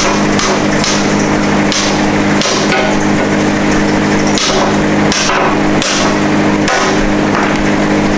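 Hammer blows on a steel rear suspension arm braced on a wood block, driving out an old rubber bushing: about eight sharp strikes at uneven intervals, over a steady low hum.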